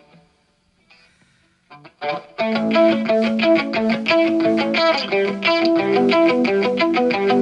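A few short taps, then about two seconds in a rock band starts a song's intro, led by strummed, distorted electric guitar in a steady rhythm, heard as a direct line recording.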